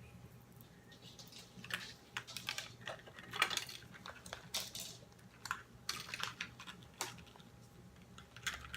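Irregular clicks and rustling of plastic packaging as an action figure is worked out of its plastic tray.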